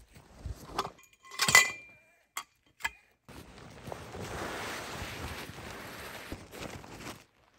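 Canvas tent fabric rustling as it is pulled out and spread over snow. About a second and a half in there is a sharp metallic clink from the tent's metal fittings, followed by two lighter clicks.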